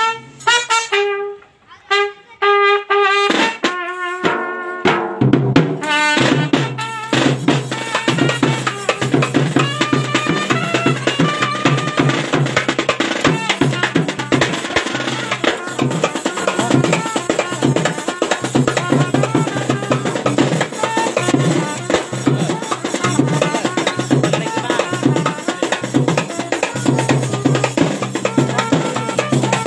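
Papare band music: trumpets and other brass play short separated phrases for the first few seconds, then drums and percussion come in and the full band plays on with a fast, steady beat.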